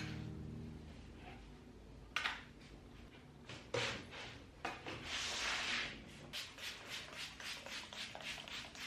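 Household cleaning sounds: a few sharp knocks of objects being handled, then quick back-and-forth rubbing strokes, about four a second, as a surface is scrubbed or wiped.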